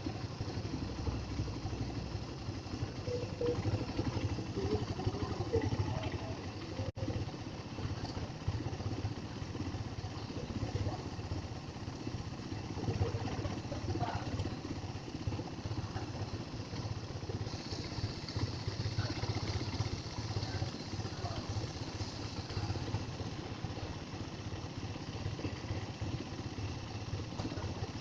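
Suzuki Satria FU 150's single-cylinder four-stroke engine idling steadily. It is being run to check for oil seeping from a newly resealed engine cover.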